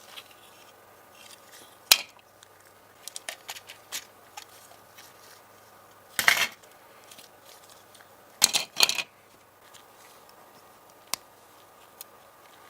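Small metal tools and parts clicking and clinking against each other and a hard work surface, with one sharp click about two seconds in. There are also three short scraping rasps, one about six seconds in and two close together about eight and a half seconds in.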